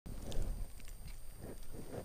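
Dry cattails and marsh grass rustling and crunching as a person moves through them, with a few short crisp crackles over a low rumble.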